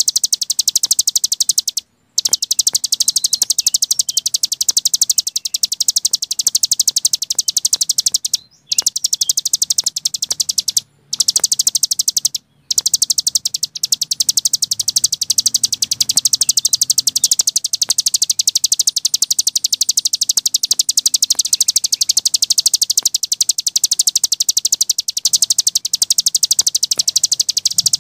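Cici gunung songbird singing a long, very fast, high-pitched trill of rapid ticking notes in the nonstop 'ngebren' style, broken by a few short pauses in the first half.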